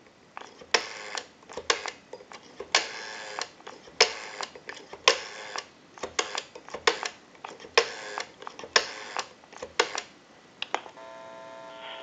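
Automatic Electric Monophone's rotary dial being dialed: for each digit the dial is wound round and spins back with a short whir and a run of clicks, several digits in a row. Near the end a faint steady tone comes from the line.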